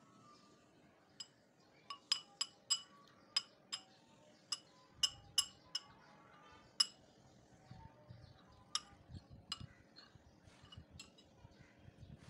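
Metal spoon clinking against the side of a glass bowl while stirring cornflour into milk to make a slurry: a string of sharp, ringing clinks, thickest between about two and seven seconds in, then fewer and fainter.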